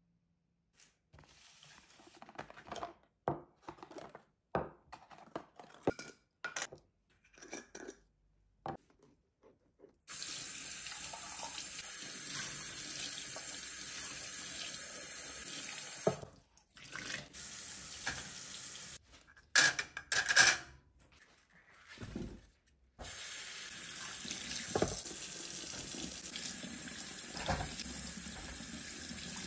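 Faint scattered knocks, then a kitchen mixer tap running a steady stream into a stainless steel sink as glass jars and then vegetables are rinsed under it. The water stops briefly a couple of times, and two sharp knocks come during one of the breaks, the loudest sounds here.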